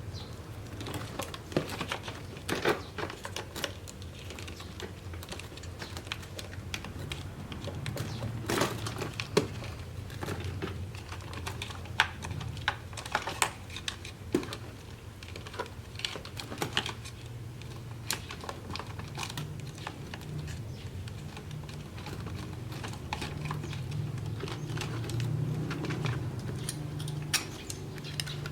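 Irregular light clicks and taps of small pieces being handled and set down by hand, over a low steady hum.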